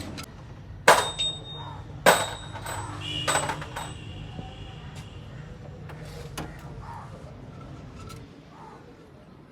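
Metal tools clanking against metal: two sharp clanks about a second apart, then a third clink that rings on briefly, over a low steady hum.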